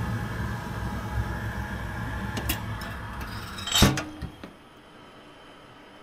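Wood boiler's draft fan running with the kindling fire drawing hard through the open loading door, a steady low rumble. About four seconds in the steel loading door is slammed shut with a loud metallic clang and a second smaller knock, after which only a low, muffled hum remains.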